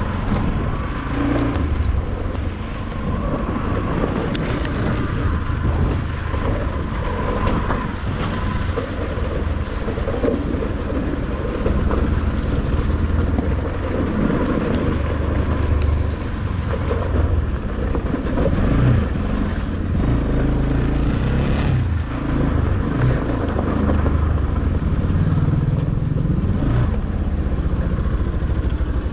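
Motor vehicle under way on a rough road: a steady low rumble of engine and road noise, with wind on the microphone.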